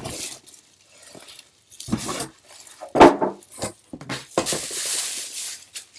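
An air fryer wrapped in a plastic bag is pulled out of its cardboard box and handled: a few knocks and clatters, then about a second and a half of plastic crinkling near the end.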